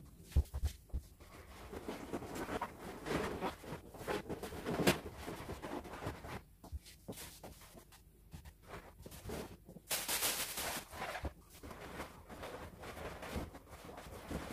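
Latex balloons being handled and pressed into a balloon garland: rubbing and soft knocks, with a brief hissy rustle about ten seconds in.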